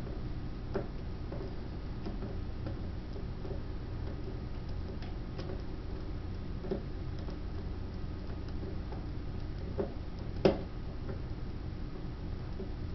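Scattered light metallic clicks and ticks of a seven-finger tubular lock pick being turned and rocked in a tubular lock, with one sharper click about ten and a half seconds in.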